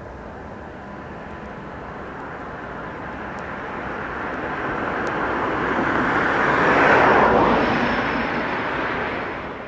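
A passing vehicle's rushing noise, growing louder to a peak about seven seconds in and then fading.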